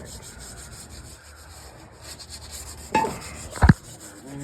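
Faint rubbing and handling noise, with a single sharp knock a little over three and a half seconds in.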